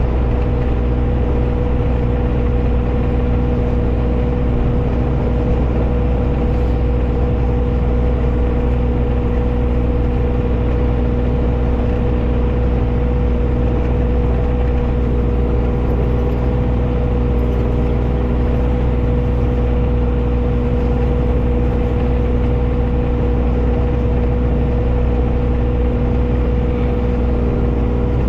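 John Deere 35G mini excavator's diesel engine running steadily at a constant speed.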